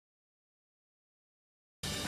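Dead silence, then music cuts in abruptly just before the end.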